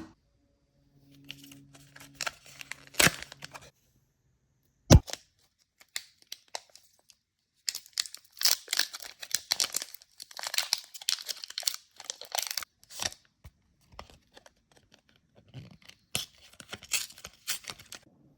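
Foil Pokémon card booster pack wrapper being torn open and crinkled by hand, in irregular rustling bursts with a couple of sharp clicks in the first five seconds.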